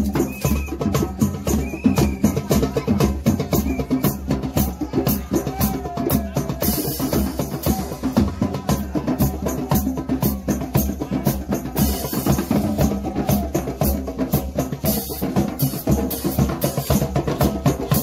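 Street drum circle: djembes and other drums played together in a fast, steady rhythm, with a few short bright crashes over the beat.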